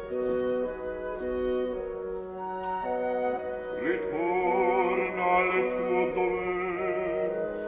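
Opera orchestra playing slow, sustained chords, with a bass voice coming in about four seconds in and holding notes with vibrato.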